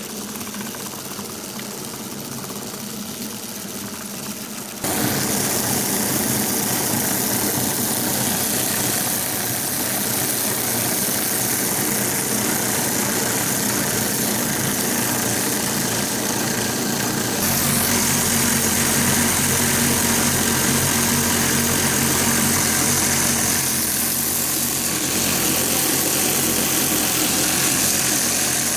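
3D-printed plastic 1:19 cycloidal reducer driven by a DC motor through a metal bellows coupling, running at high speed with a steady mechanical whir. It gets abruptly louder about five seconds in, and a deeper hum joins at around seventeen seconds.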